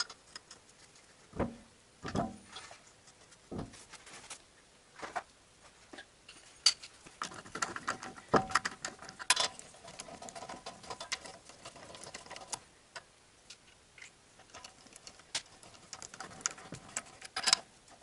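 Light metallic clicks and knocks of wheel nuts being fitted and run onto the wheel studs of a car's front hub, irregular at first and coming in quicker runs of ticks through the middle and near the end.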